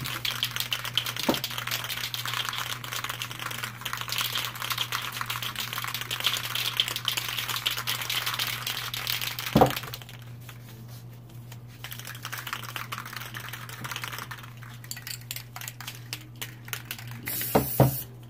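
Aerosol spray-paint cans being shaken hard, the mixing balls rattling rapidly inside. The rattling goes on for about ten seconds, then turns lighter and on-and-off, with a sharp knock about halfway through and a couple more near the end, over a steady low hum.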